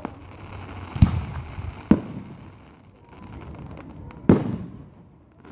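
Aerial fireworks shells bursting: three sharp bangs, two close together about a second in and a third past four seconds, each with an echoing tail, over a steady rumble and crackle from the display.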